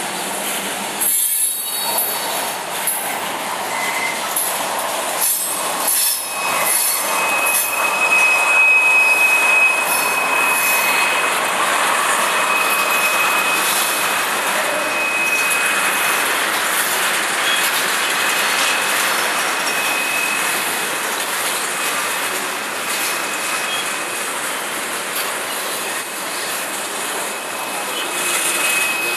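Freight train cars rolling past at close range: a steady rumble of steel wheels on rail, with a few sharp clicks of wheels over the track in the first several seconds. A thin, steady high-pitched wheel squeal comes in about six seconds in and holds.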